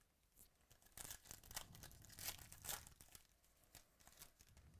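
Quiet tearing and crinkling of a trading-card pack's foil wrapper being ripped open by hand: a run of irregular crackles, loudest about two to three seconds in.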